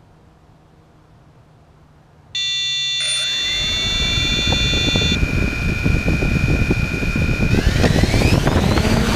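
Quadcopter drone's electric motors starting abruptly about two seconds in, then running with a steady whine and propeller rush. Near the end the whine rises in pitch as the drone throttles up to lift off.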